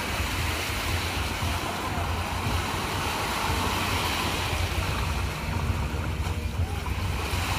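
Small waves breaking and washing up on a sandy shore, with wind buffeting the microphone as a steady low rumble.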